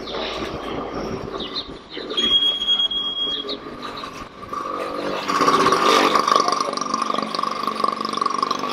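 A small motorcycle's engine running as it rides past, growing louder and steady from about five seconds in. About two seconds in there is a brief high, steady tone.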